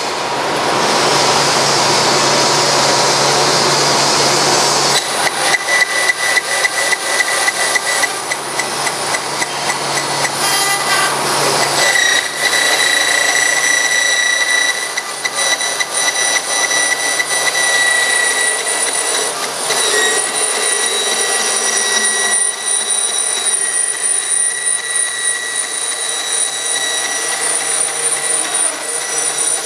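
Forrest Model 204 vertical bandsaw, its one-inch, 3-tooth-per-inch hook-tooth blade running at 3,000 feet per minute, cutting through a roll of polypropylene film wound on a hard cardboard core. A steady run with a high tone, and from about five seconds in a fast, continuous rattle of the teeth biting into the roll as it is fed.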